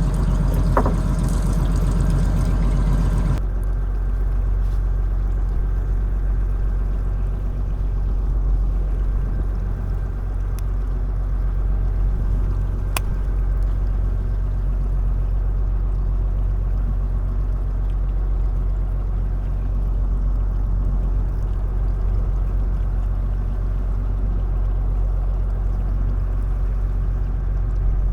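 Fishing boat's engine running at a steady low hum, with a brighter hiss that drops away about three seconds in.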